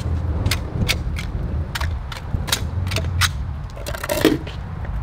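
Handheld plastic fry cutter being worked against a concrete block, giving a string of sharp plastic clicks and knocks and a short creak about four seconds in, over a steady low hum.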